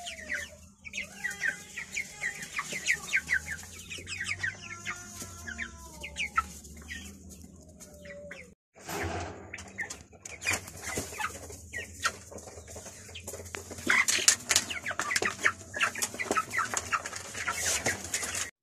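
A flock of young white broiler chickens calling, with many short, high, falling peeps overlapping and a few lower clucks. The calls break off briefly about nine seconds in, then come back denser and louder.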